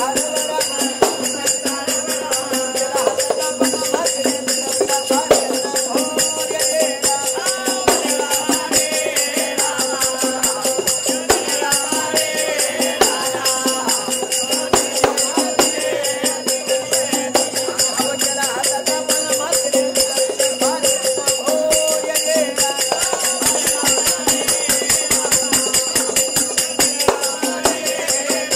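Gondhal devotional song: several men singing together to a drum and small hand cymbals, which keep up a steady, fast rhythm throughout.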